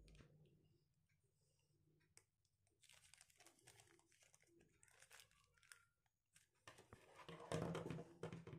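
Small plastic zip-lock bag of screws crinkling as it is handled, in short scattered bursts. The crinkling and handling noise gets louder and denser near the end as the parts are set down.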